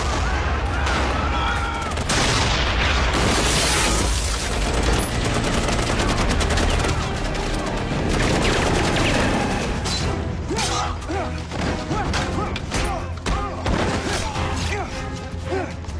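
Film battle soundtrack: gunfire and explosions over music, with dense rapid shots through the second half.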